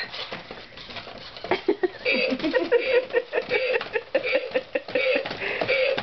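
Toy humanoid robot running through a routine. Clicking and rattling from its motors, gears and feet comes first. From about a second and a half in, its speaker plays a rhythmic string of short electronic sounds, about two or three a second.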